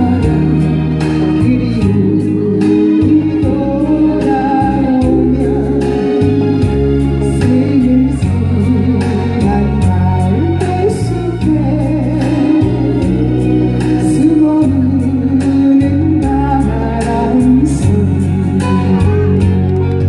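A woman singing a Korean popular song over a backing track with an electronic keyboard and a steady beat.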